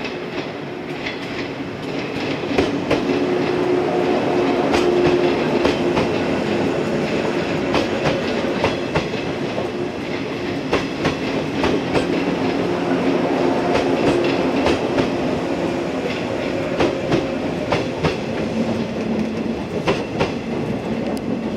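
JR West 115 series electric train of two coupled sets running past, its wheels clicking over the rail joints in a steady run of clacks over a continuous rumble and a faint steady hum.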